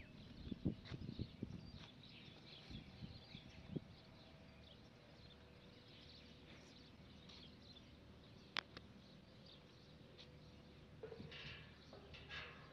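Near silence: faint outdoor ambience with a few light clicks and faint high chirps, and no machine heard running.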